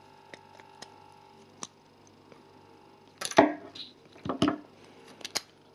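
Plastic building bricks clicking and knocking as a small brick model is pulled apart by hand and pieces are put down: a few scattered sharp clicks, the loudest about three and a half seconds in and a couple more near the end.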